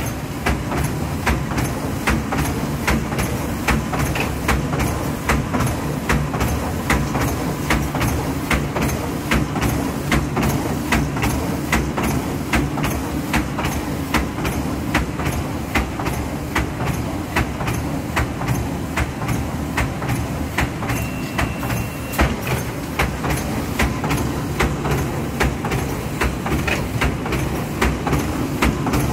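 Arvor GGL 128 automatic welding machine running: a steady mechanical drone with a rapid, even clacking from its chain conveyor.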